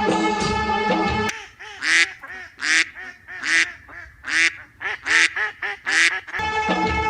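Ducks quacking: about six loud quacks, each under a second apart, in a gap in the background music, which cuts out about a second in and comes back near the end.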